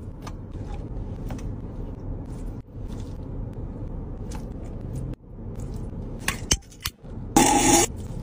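Fingers picking through rice and chicken on a metal tray, with soft crackling and clicking handling sounds over a low steady car-cabin rumble. Near the end comes a louder, harsh rasp of about half a second.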